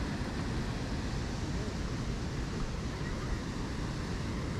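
Wind rumbling on the microphone over a steady rush of river water spilling through a barrage.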